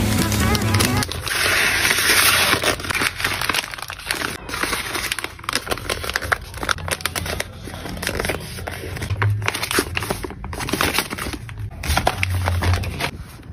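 Crinkling and rustling of a pink mailer bag as it is folded and handled by hand, many small irregular crackles, with a brief steady hiss about a second in.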